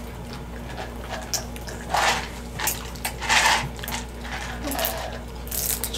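People chewing and eating pizza at a table, with a few short, noisy mouth sounds and scattered light clicks.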